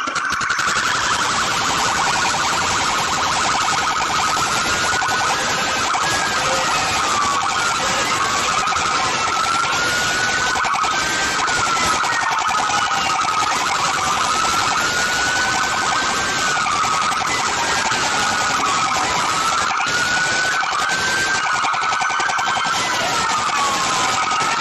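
Several police car sirens wailing at once, their pitches rising and falling out of step with one another, over a steady hiss.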